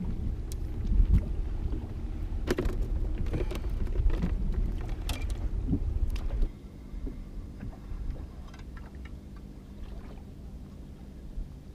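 Low wind rumble and water against a small boat's hull, with a few sharp knocks on the boat. About six seconds in the rumble drops away, leaving a faint steady hum and some light clicks.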